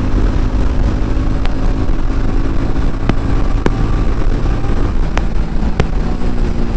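TVS Ronin motorcycle's single-cylinder engine running on the move under a heavy low rumble, with a few sharp clicks. Near the end the engine note steps up as it is downshifted from fifth to third gear.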